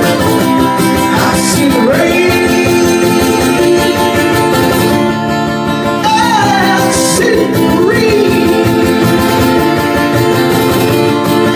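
Acoustic guitar strummed steadily while a man sings live into a microphone, his voice coming in about a second in and again around six seconds.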